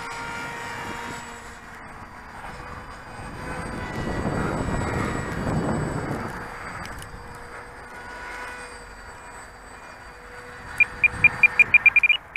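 Radio-controlled model plane's motor droning high overhead, swelling and then fading over a few seconds. Near the end a run of about ten short, loud electronic beeps that come faster and faster.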